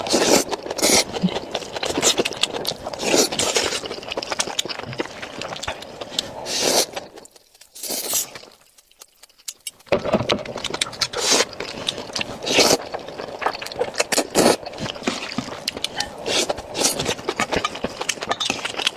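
A spoon scraping and clinking in a bowl as rice is stirred together with stir-fried dishes, in a dense run of irregular scrapes and clicks. The scraping stops for about two seconds in the middle, then starts again.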